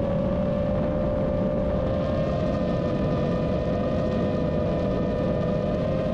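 GEPRC Vapor D6 FPV drone's brushless motors and propellers whining steadily at cruise throttle, with a rush of air over the onboard camera's microphone. The pitch dips slightly in the first second, then holds.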